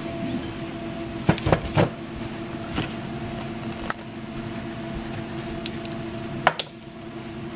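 Sharp metallic clicks of a steel tool and tweezers working at a ring clamped in a ball engraving vise, prying out the stones: three clicks close together about a second and a half in, then single ones spaced through the rest. A steady hum with a few held tones runs underneath.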